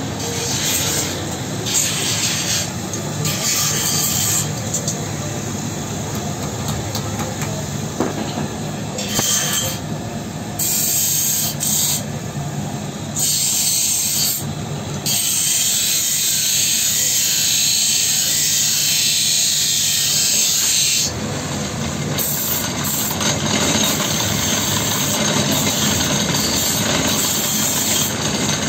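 Pillar drill press motor running steadily with a low hum and a mechanical hiss, with a louder high hiss for several seconds about halfway through.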